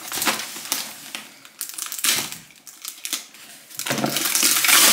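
Cardboard and brown-paper wrapping around a bottle being cut with a kitchen knife: a series of short scrapes and ticks. About four seconds in, the wrapping is torn and pulled open by hand, a loud, continuous crinkling.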